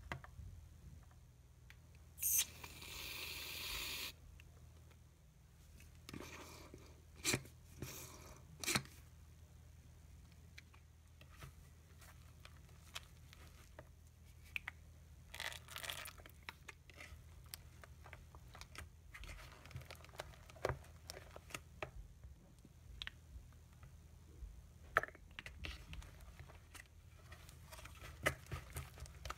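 A red silicone spatula scrapes and stirs white PVA glue and shaving cream in a clear plastic bowl, with a scattering of soft scrapes and sharp clicks. Near the start comes a loud, even hiss lasting about two seconds, shaving cream being sprayed from its aerosol can.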